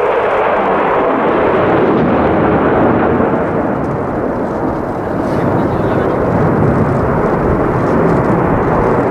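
F-16 fighter jet making a low display pass with its afterburner lit: loud, steady jet-engine noise that dips slightly about halfway through and then swells again.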